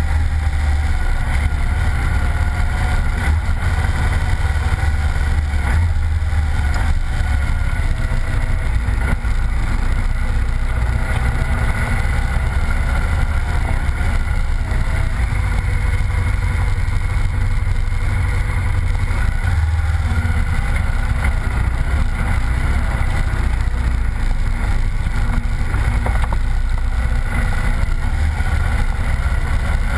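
Honda Varadero motorcycle engine running steadily while riding a rough dirt track, mixed with a low rumble of wind on a helmet-mounted microphone.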